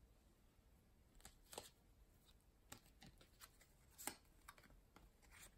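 Faint rustles and soft taps of a stack of trading cards being flipped through by hand, one card slid from the back to the front about once a second.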